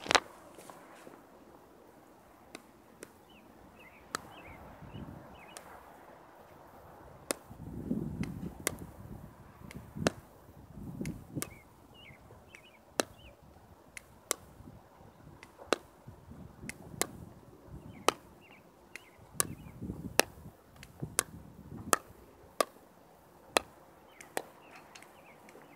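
Pickleball rally: sharp pops of a plastic pickleball struck by composite paddles and bouncing on asphalt, roughly one a second, with a few short pauses between rallies.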